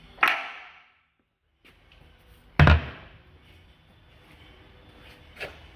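Two clunks from the drive controls of a Heald horizontal mill being shifted between direct drive and back gear speeds. The second clunk, about two and a half seconds in, is louder and deeper. A faint click comes near the end.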